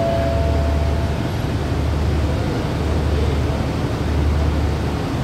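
Diesel express train standing at the platform with its engines idling: a steady low rumble under a noisy hiss. A faint, brief high tone is heard in about the first second.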